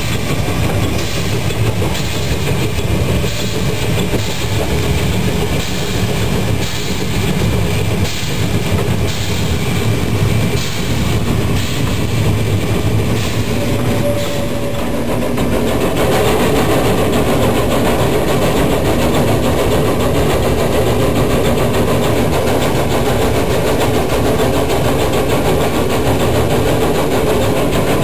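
Narrow-gauge steam tank locomotive 99 6101 working hard under load with its exhaust beating, mixed with the running clatter of the train on the rails. The beat is clearer in the first half and gives way to a steadier, denser sound from about halfway.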